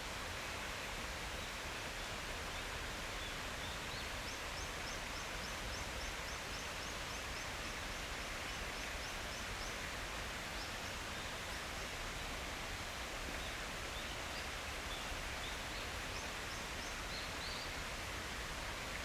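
Steady rushing outdoor noise of a mountain forest, with small birds calling over it: a fast high trill of repeated short notes lasting about five seconds, starting a few seconds in, and scattered short chirps.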